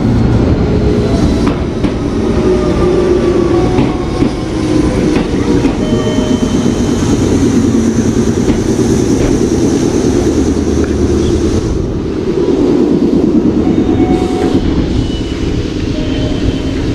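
Red Meitetsu commuter train pulling into a station platform and braking to a stop. The wheels clatter on the rails, a whine falls in pitch as the train slows, and a high hiss in the middle stretch cuts off sharply about twelve seconds in.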